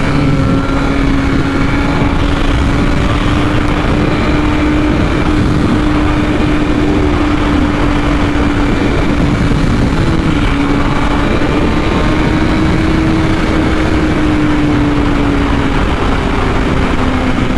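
BMW S1000RR inline-four engine running at a steady high cruising speed, its pitch holding nearly level with a slight rise and fall near the middle, under heavy wind rushing through the rider's helmet.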